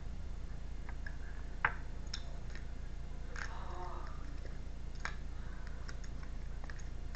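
Tarot cards being handled: a few scattered soft clicks and short rustles, over a steady low hum.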